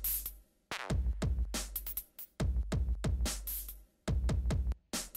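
Electronic music: a drum-machine beat over a deep bass with falling sweeps. It cuts out briefly several times.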